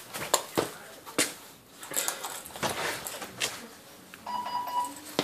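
Scattered knocks, clicks and rustling of things being handled on a table. Near the end comes a short steady electronic beep lasting under a second.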